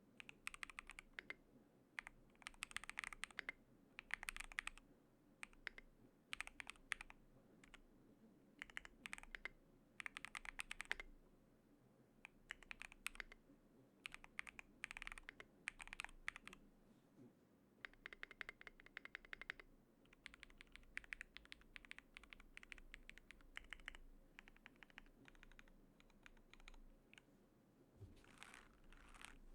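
Typing on an Akko YU01 VIA mechanical keyboard with Akko V3 Piano Pro switches, a foam-dampened resin case and thick plastic keycaps: quiet, soft, muffled keystrokes in quick runs of about a second, with short pauses between them.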